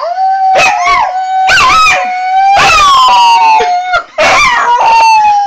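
A Jack Russell–beagle mix dog howling in several drawn-out, falling howls, with a person howling along in a long, steady, held note.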